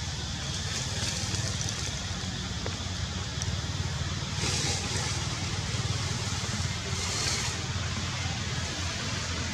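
Steady outdoor background noise: a low rumble with two brief hissing swells about midway and later on.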